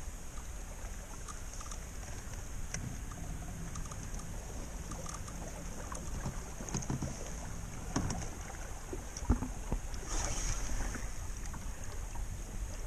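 Steady low wind noise on the microphone over water around a small boat's hull, with scattered light clicks and knocks, the sharpest of them about nine seconds in.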